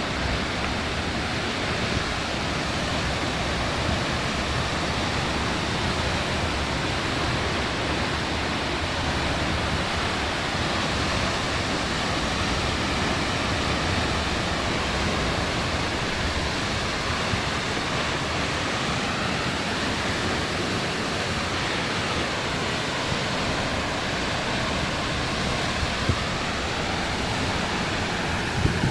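Waterfall pouring: a steady, dense rush of falling water, unbroken throughout.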